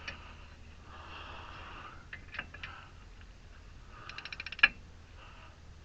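Ratchet wrench clicking: a few scattered clicks, then a quick run of about ten clicks ending in one sharp, louder click. The ratchet is stiff and in need of lubrication.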